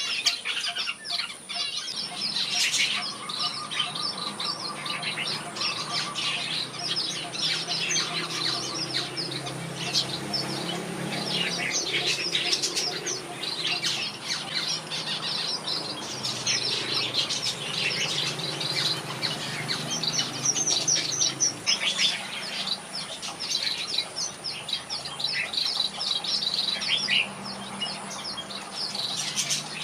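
Red-whiskered bulbuls singing and chirping, a dense stream of quick, short bright notes overlapping one another.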